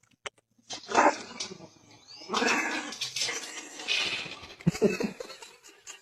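An animal's calls in several loud, rough outbursts, starting about a second in, with the longest in the middle.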